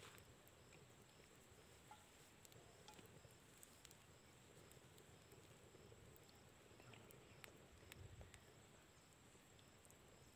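Near silence: faint outdoor ambience, with insects chirping in an even rhythm and a few small ticks.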